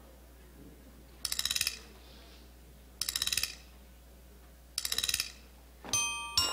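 Three short bursts of rapid, evenly spaced rattling clicks, like a ratchet, about a second and a half apart. Near the end, ringing glockenspiel-like notes of the dance music begin.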